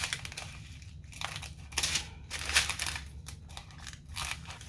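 Small plastic bags of diamond-painting drills crinkling in irregular bursts as they are handled, opened and emptied into a storage container.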